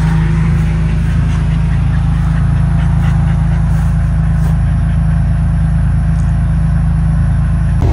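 Engine of a side-by-side ranch utility vehicle (buggy) idling steadily, a low, even hum with no change in pitch.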